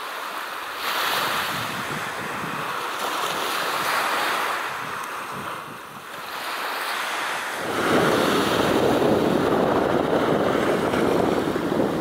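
Seashore ambience: waves washing and wind blowing on the microphone, with no distinct bird calls. About halfway through the wind noise grows louder and deeper.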